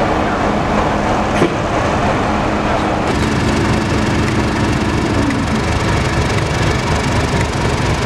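Diesel locomotive engine running steadily: a low rumble with a steady hum, and one sharp click about a second and a half in.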